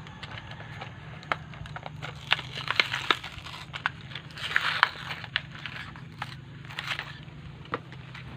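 Scattered light clicks of small metal carburetor parts being handled, with a plastic packet crinkling about four and a half seconds in.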